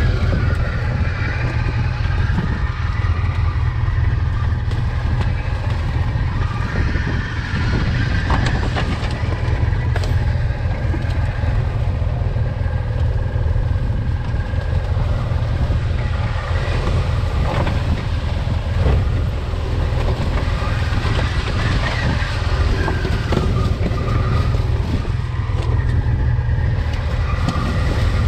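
Polaris RZR side-by-side's engine running steadily under way, heard from on board, with a few short knocks from the chassis.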